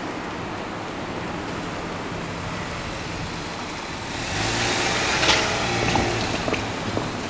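Steady traffic noise, then a vehicle passing close by from about four seconds in, with a sharp knock partway through.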